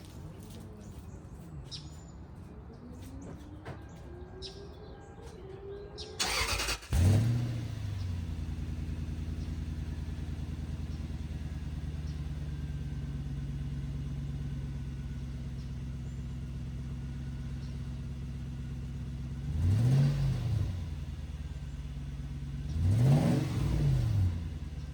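Toyota 100-Series Land Cruiser engine cranking and catching about six seconds in, then settling into a steady idle through its freshly welded exhaust, now sealed with no leaks. It is revved briefly twice near the end, each rev rising and falling.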